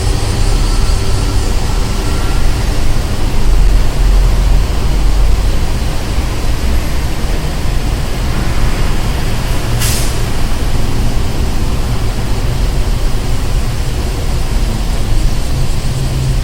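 Street traffic ambience: a continuous low rumble of passing vehicles, with one short, sharp hiss of air about ten seconds in.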